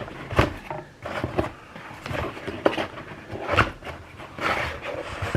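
Hot sauce bottles and their packaging being handled: rustling with several short, light knocks as things are picked up and set down.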